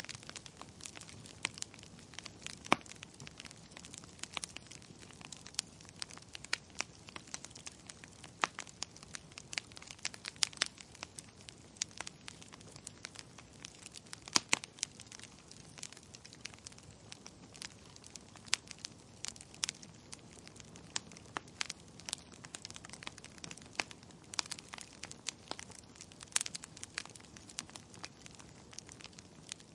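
Burning logs crackling, with irregular sharp pops and snaps, a few of them much louder, over a faint steady hiss.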